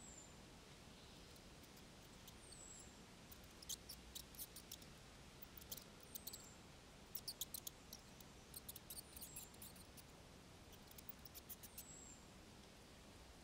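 Faint, very high-pitched small-animal chirps: a short falling chirp every two to four seconds, with bursts of rapid high clicking and ticking through the middle, over near-silent outdoor background.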